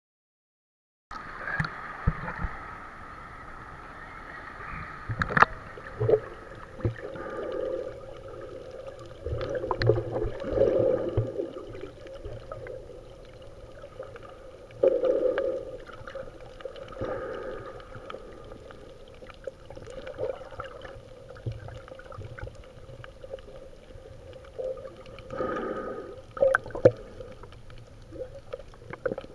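Muffled water sloshing and gurgling picked up by a camera held underwater, swelling and fading irregularly, with scattered sharp clicks. It starts about a second in.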